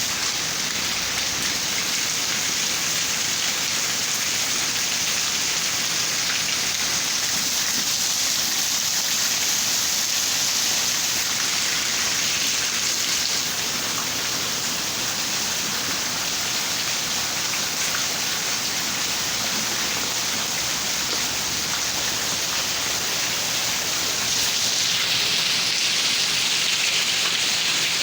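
Steady rain falling, an even hiss that grows a little louder and brighter about 25 seconds in.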